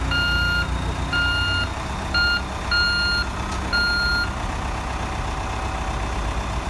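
The reversing alarm of a Volvo roller compactor beeps about once every 0.8 seconds over its running diesel engine as the machine backs up. The beeps stop a little past halfway and the engine carries on.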